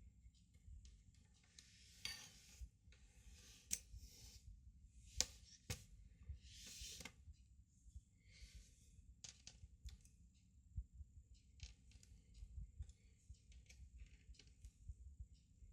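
Faint, scattered clicks, taps and short scrapes of a Lenovo laptop being taken apart by hand: plastic case parts and small components being handled, pried and set down.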